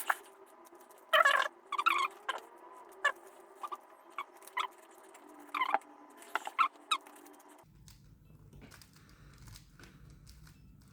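Rubik's Cube layers being turned by hand, plastic clicking and clacking in irregular bursts that thin out after about seven seconds.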